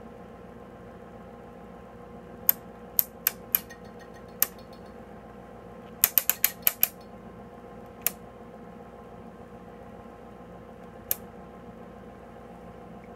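Rotary selector switch on an HP 5327B counter/timer clicking through its detents as it is turned: about a dozen sharp clicks, a few spaced out at first, a quick run of about six around the middle, then two lone clicks. A steady low hum runs underneath.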